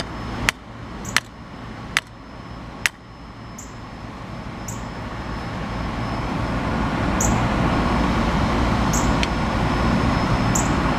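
Four sharp clicks in the first three seconds, then a steady low rumble that swells over several seconds and holds.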